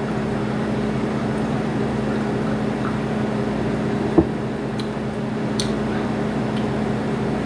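Steady low hum of room tone, with one sharp click about four seconds in and a couple of faint ticks after it.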